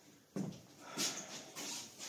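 A few short breathy puffs of a person laughing softly under their breath.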